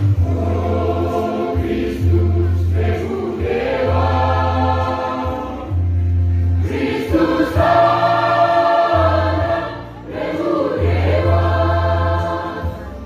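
Choir singing in harmony, phrases swelling and easing, over a deep bass note that sounds in blocks of a second or two with short gaps.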